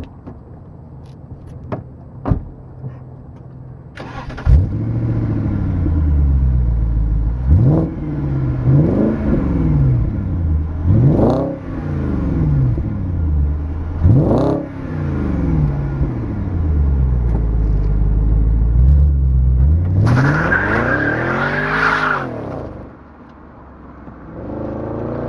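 BMW 645Ci's V8 engine revved in sharp blips several times, then held high for about two seconds with a hiss of tyres spinning as the car launches, and heard again accelerating away near the end.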